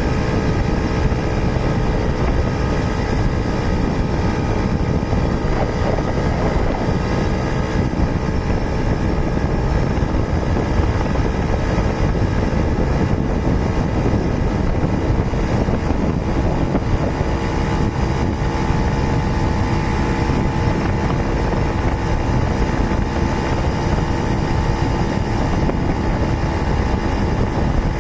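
Suzuki Tornado motorcycle engine running steadily while riding, with wind rushing over the microphone.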